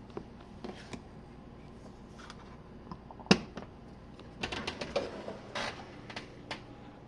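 Jenn-Air dishwasher: a scatter of sharp clicks and knocks over a low steady hum, with one loud knock about three seconds in and a quick run of clicks a second later.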